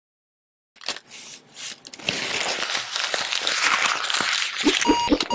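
A crumpled ball of paper being unfolded and smoothed out by hand, crackling and crinkling, starting about a second in and loudest in the middle. Near the end, a rapid, regular electronic beeping like an alarm clock starts.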